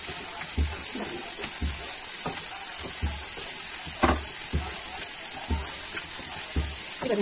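Steady frying sizzle, with a low thump about once a second.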